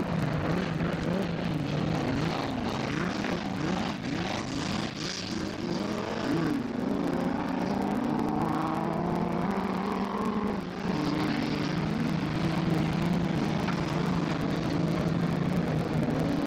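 Autocross cars' engines revving up and down as they race on a dirt track, over a steady low engine drone.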